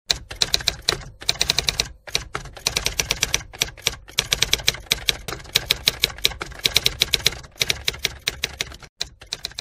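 Typewriter-style key clacks in quick runs with short pauses between them, a typing sound effect for text spelling out on the screen; the clacking turns fainter near the end.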